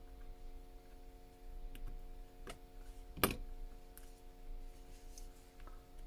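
A few scattered small clicks and taps, the loudest about three seconds in, over a steady electrical hum.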